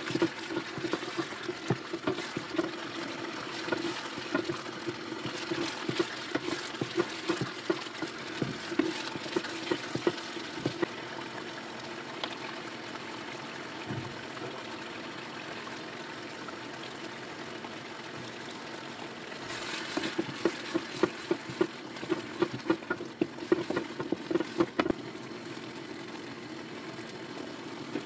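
Wooden spatula stirring and scraping a thick masala gravy in a non-stick frying pan as it bubbles and sizzles on the stove. Quick scraping strokes come for the first ten seconds or so and again from about twenty seconds in, with steady sizzling between them, over a constant low hum.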